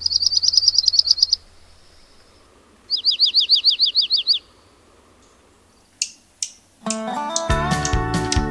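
Dark-eyed junco singing two short, high trills of rapid repeated notes, the second with down-slurred notes. Near the end, a couple of clicks and then plucked-string music with a bass line begin.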